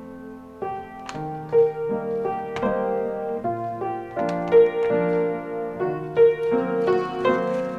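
Background piano music: a gentle melody over chords, with notes struck one after another.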